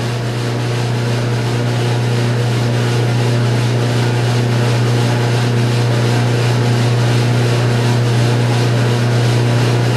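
Ambex drum coffee roaster running mid-roast: a steady low drone from its fans and rotating drum, unchanging throughout.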